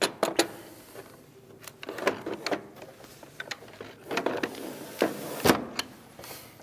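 A vinyl double-hung window sash being handled in its frame: clicks and knocks with short sliding rubs as the sash is worked loose and lifted out. The loudest knock comes about five and a half seconds in.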